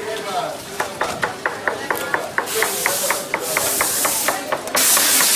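Rapid, even clicking, about four to five clicks a second, joined partway through by repeated bursts of hissing spray.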